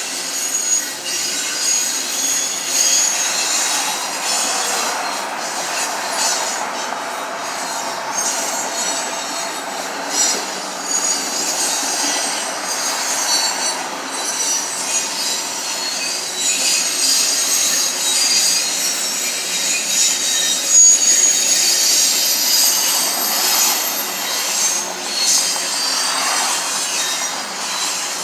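Long Union Pacific freight train of double-stacked container cars rolling past, its steel wheels running on the rails with a steady, wavering high-pitched squeal.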